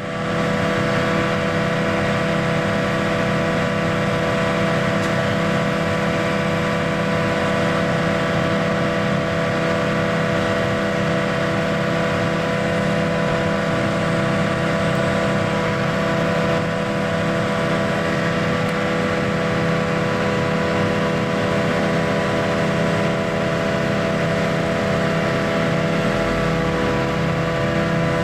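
Heavy farm machinery at corn silage chopping: a steady engine drone at constant speed with a hum of several held tones that does not change.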